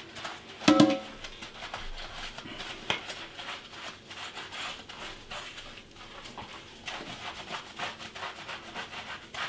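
A dirty Commodore C16 computer part being scrubbed by gloved hands at a kitchen sink: irregular wet rubbing strokes, with one short, ringing clatter about a second in.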